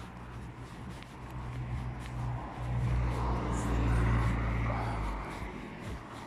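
A car driving past on the street: engine and tyre noise over a low rumble, swelling about halfway through and then fading as it moves away.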